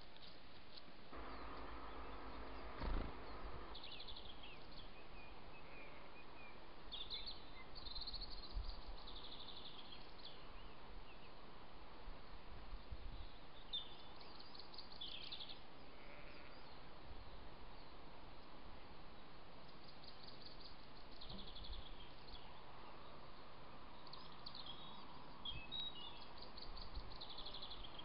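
Songbirds singing in short, repeated high trills over the steady hiss of a trail camera's microphone, with a single sharp knock about three seconds in.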